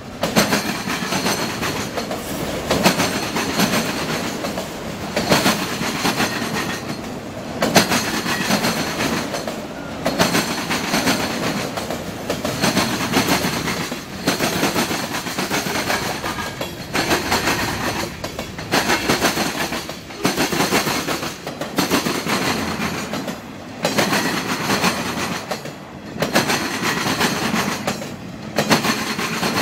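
Norfolk Southern freight cars rolling past, their steel wheels clattering over a rail diamond crossing in loud bursts that repeat every two seconds or so.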